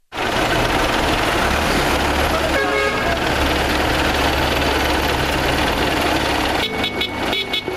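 Several Belarus farm tractors' diesel engines running together, with horns tooting: one toot about three seconds in and a few short toots near the end.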